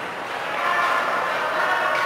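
Ice-rink ambience during a children's hockey game: a steady wash of arena noise with indistinct voices of spectators and players, growing louder about half a second in.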